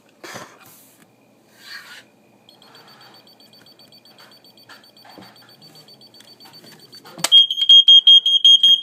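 A match struck with a short rasp, then a smoke alarm set off by match smoke: faint high beeping at first, then a sharp click and loud, rapid high-pitched beeping for about two seconds near the end.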